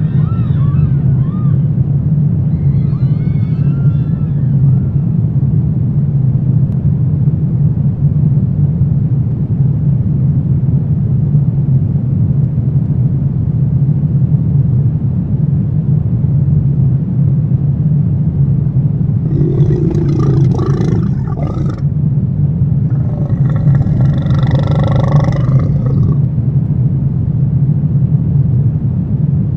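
Horror ambience: a continuous low rumbling drone, with thin wavering eerie tones near the start. About two-thirds through come two loud, voice-like cries with several pitches, each a couple of seconds long.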